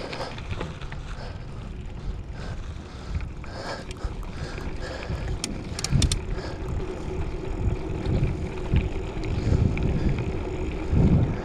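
Mountain bike rolling over a dirt trail: wind buffeting the microphone, tyres crunching on dirt, and a few sharp rattles and clicks from the bike. A steady hum joins in about two-thirds of the way through.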